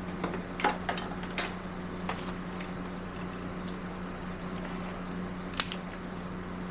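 A few light clicks and knocks of parts being handled while a motorcycle mirror is fitted back on, the sharpest click about five and a half seconds in, over a steady low hum.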